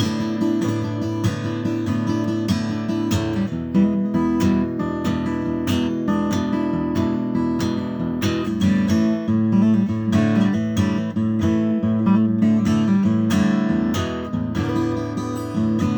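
Acoustic guitar playing an instrumental blues break, strummed and picked, with no singing.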